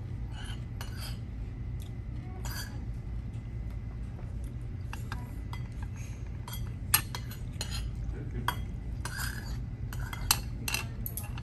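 Cutlery and dishes clinking irregularly during a meal, with two sharper clinks in the second half, over a steady low hum.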